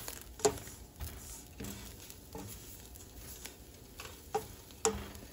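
Silicone spatula stirring and scraping grated coconut as it dry-toasts in a nonstick wok: soft rustling, with a few sharp taps of the spatula on the pan, the loudest about half a second in and another near the end.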